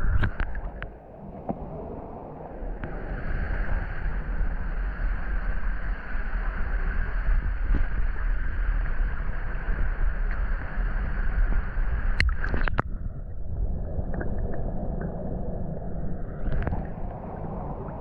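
Muffled rumbling, gurgling water noise picked up by a GoPro action camera in or at the water of a river. Sharp clicks come just after the start and again about twelve seconds in, where the sound changes.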